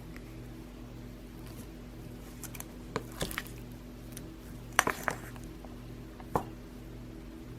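Several light clinks and knocks of small hard objects being handled, in two quick clusters about three and five seconds in and once more a little after six, over a steady low hum.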